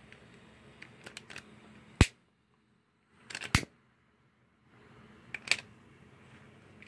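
Sharp clicks of a long-nosed butane utility lighter's trigger being worked to light a scrap of newspaper: one click about two seconds in, a quick cluster around three and a half seconds, and another pair near five and a half seconds.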